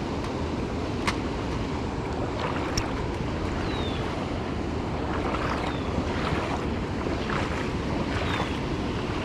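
Steady rush of river water around a wading angler, with wind on the microphone. A short, high, falling chirp comes four times, and two sharp clicks sound in the first few seconds.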